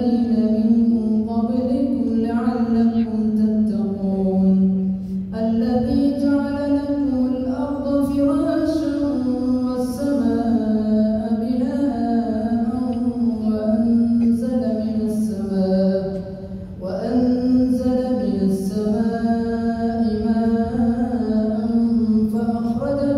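A male imam chanting Quran recitation aloud during maghrib prayer, in long, melodic phrases with brief pauses about five and seventeen seconds in.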